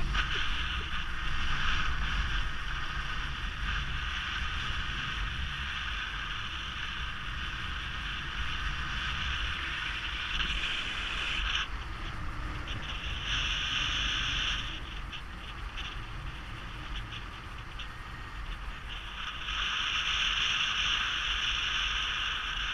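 Wind rushing over the microphone in paraglider flight, a steady airy rush. It eases for a few seconds past the middle and picks up again near the end.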